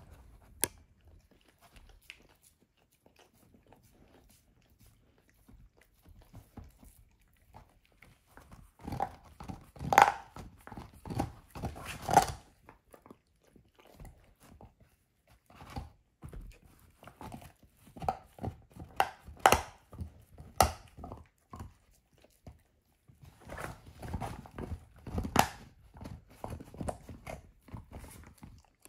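A dog gnawing and crunching on a lamb bone: groups of sharp cracks and clicks with quieter pauses between, the quietest stretch in the first several seconds.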